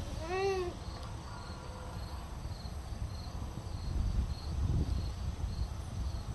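Insects chirping in a steady rhythm, a few short pulses a second, over a low rumble of wind on the microphone. About half a second in, a single short call rises and falls in pitch.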